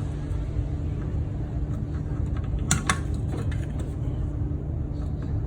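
Car on the move: a steady low rumble of tyres and running gear, with a faint steady hum. Two sharp clicks come just before the three-second mark.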